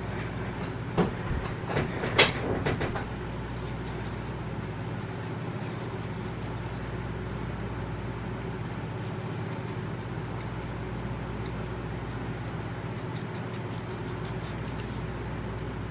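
A few sharp clicks and knocks about one to three seconds in, then a steady low hum with faint light ticks, as hands rub seasoning into raw quail and shake a spice jar over it.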